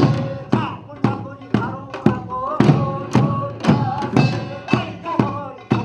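Korean farmers' band music (nongak) played on percussion, struck in a steady beat of about two strokes a second, with ringing tones sustaining between the strokes.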